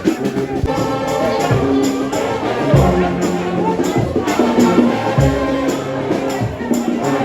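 Upbeat music led by brass horns, with held notes over a heavy beat of low drum thumps.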